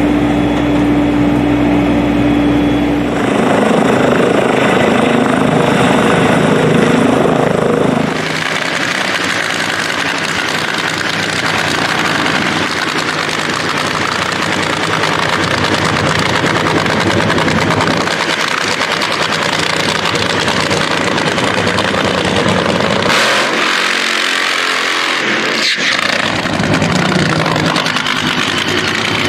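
Drag-racing funny car engine running loud and steady, with a steady droning hum in the first few seconds before the sound changes.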